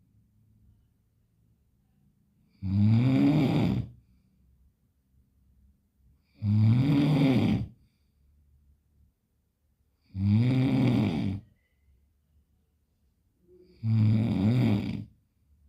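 A person snoring loudly: four long snores, each about a second and a half, coming about every three and a half to four seconds.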